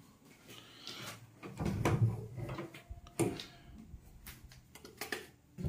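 Footsteps indoors with a few scattered knocks and clicks, about half a dozen, and a brief low thudding about two seconds in.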